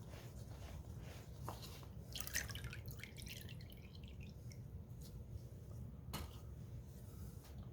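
Faint drips and small splashes of liquid concrete sealer as small concrete pieces are dip-coated, with a short cluster of splashy sounds about two seconds in and a few light clicks.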